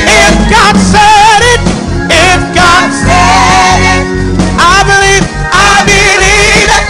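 Live gospel worship music: a man singing with a wavering vibrato into a microphone over band accompaniment with a deep bass.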